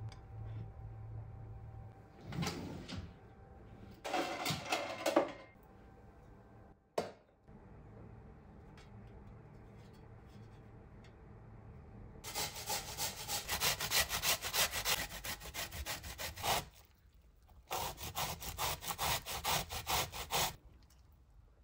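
Zucchini grated by hand on the fine side of a stainless steel box grater: quick rasping strokes in two runs, with a short pause between them. Before that, a couple of brief handling noises.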